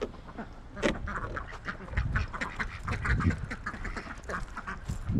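Ducks quacking rapidly over one another, a flock calling continuously, with a sharp click about a second in and a few low bumps.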